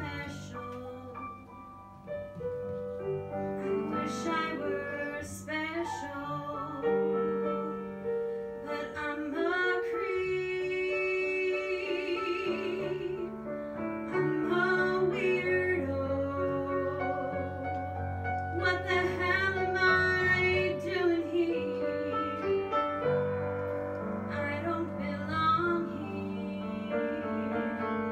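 A girl singing a slow ballad live with grand piano accompaniment; about twelve seconds in she holds a long note with vibrato.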